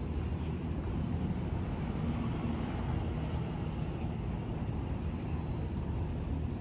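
Steady low rumble of vehicle traffic outdoors.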